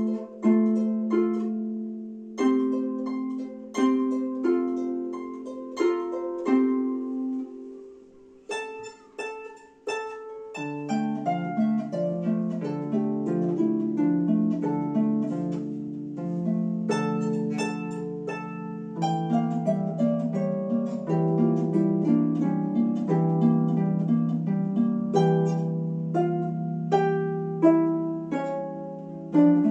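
Solo harp playing: plucked notes and chords that ring and fade, with short pauses in the first few seconds and a quiet dip around eight seconds in. From about ten seconds in, a low bass line joins and the playing runs on without breaks, with a melody over the bass.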